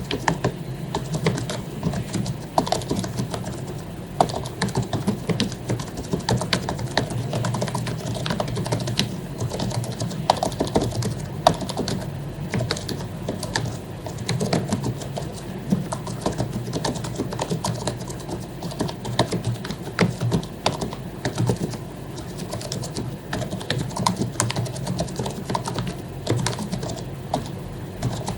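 Fast, continuous typing on an HP membrane keyboard, its keycaps lubed, giving a dense run of soft key clicks and thuds, several keystrokes a second without pause.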